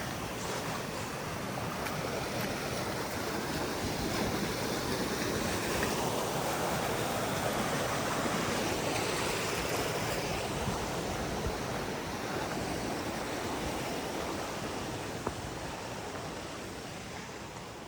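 Stream water rushing steadily, growing louder through the middle and fading toward the end.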